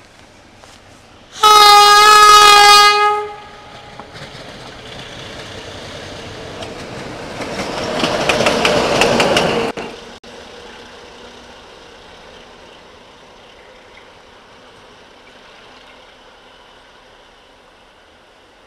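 A Sulzer-engined 060-DA diesel-electric locomotive sounds its horn once, a loud single note lasting about two seconds. Its engine and wheels on the rails then grow steadily louder as it approaches and passes, peaking just before ten seconds in and cutting off suddenly, leaving a fainter steady rumble.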